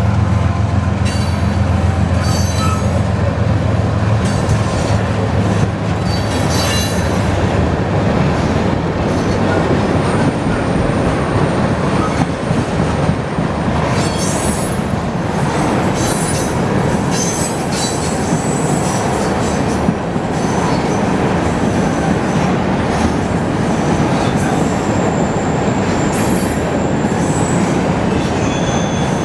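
Loaded freight train of tank cars rolling past, a steady rumble and clatter of wheels on the rails, with high-pitched wheel squeal from the curve coming and going.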